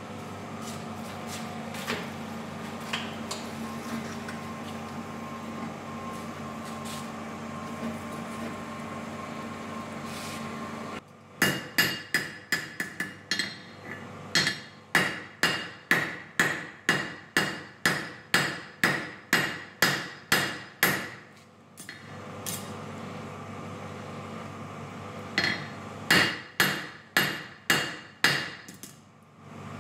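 Steady hum of a coal forge's air blower while the steel heats, then a hand hammer striking hot steel on an anvil in an even rhythm of about two blows a second for some ten seconds. The hum returns briefly before a second, shorter run of blows near the end.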